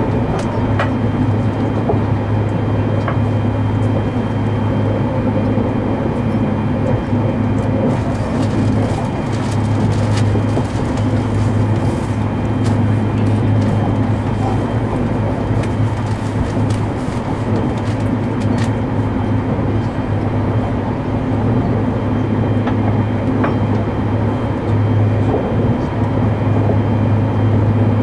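Hakutaka limited express electric train running at speed, heard from inside the passenger car: a steady low hum over a constant rushing running noise, with a few faint clicks.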